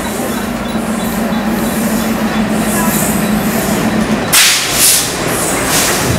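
Train running through a station: a steady low hum under a wash of rail noise, then loud hissing and squealing from about four seconds in, lasting about two seconds.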